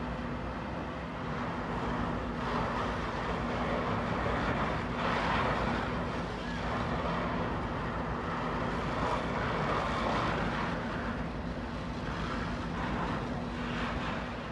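Fire tanker truck's engine running with a steady hum, with a rushing noise that swells and fades several times over it.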